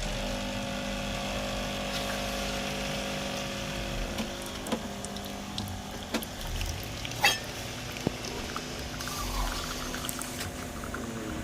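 Jura F90 bean-to-cup coffee machine's pump switching on and humming steadily while coffee runs into the cup, with a few sharp clicks partway through.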